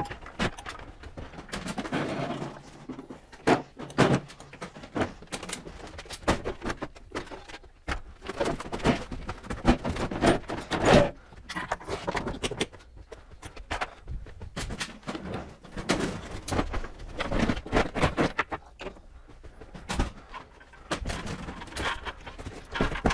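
Irregular clicks, knocks and rattles as work gear is handled in a cargo van: caster wheel locks pushed down, a hand truck moved, and footsteps on the van floor.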